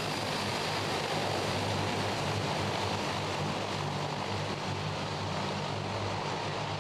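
A C-160 Transall's two Rolls-Royce Tyne turboprop engines running as the aircraft rolls past along the runway: a steady rushing noise with a low droning hum underneath.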